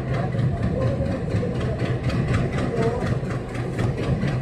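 Diesel train engine running with a steady low drone and a fast, even clatter of about four beats a second.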